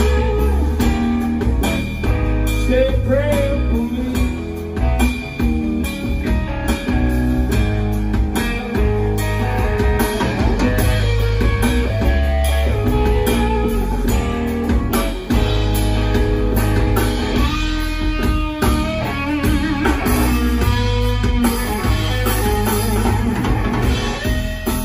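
Live blues-rock band playing an instrumental passage: an electric guitar plays a lead line with held, bent and wavering notes over bass guitar and a drum kit.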